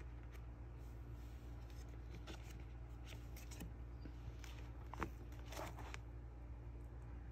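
Baseball cards being handled: faint scattered rustles and small clicks, with a sharp click about five seconds in followed by a brief scraping rustle.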